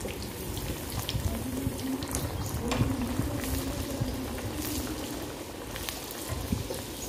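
A breadcrumb-coated veg burger tikki deep-frying in hot oil in a pan, bubbling steadily with scattered sharp crackles and pops.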